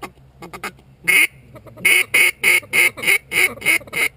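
Loud mallard hen quacking: one quack about a second in, then a steady run of about eight quacks, about three a second. A few fainter quick notes come near the start.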